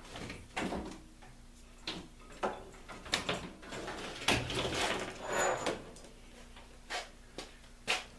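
Handling noises on a workbench: scattered clicks and knocks, with a stretch of rustling and scraping about three to six seconds in, as an item such as a power cord is picked up and moved.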